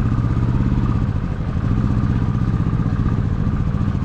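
Motorcycle engine labouring in a low gear up a steep, rutted track. It runs steadily with a fast, even pulse. The bike is struggling for power on the climb, and the rider is slipping the clutch in and out to keep it moving.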